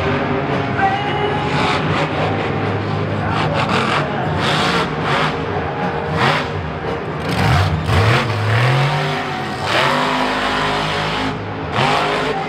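Monster truck's supercharged V8 engine revving hard during a freestyle run, the pitch climbing in repeated revs about eight seconds in.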